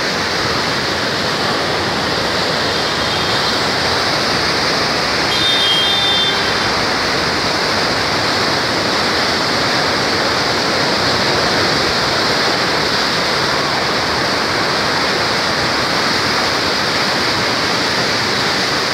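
Muddy floodwater of the Saptakoshi (Koshi) River rushing through the Koshi Barrage, a loud, steady torrent.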